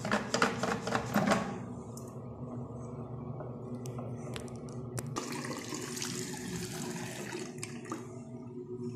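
Wall-mounted soap dispenser pumped about three times near the start, then a bathroom sink faucet running water into the basin from about five seconds in.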